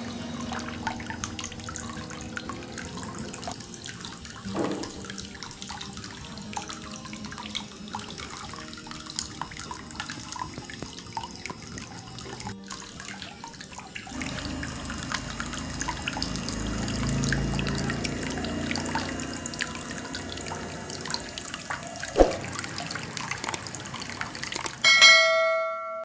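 Water trickling and splashing down the tiers of a small cement tabletop waterfall fountain into its basin; about halfway through the splashing turns fuller and louder. A short ringing chime sounds near the end.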